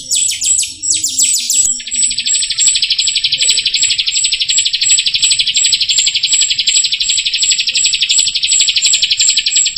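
Jalak rio songbird singing: a quick run of falling, chattering notes, then about two seconds in a long unbroken buzzy trill with short, very high notes about three times a second over it.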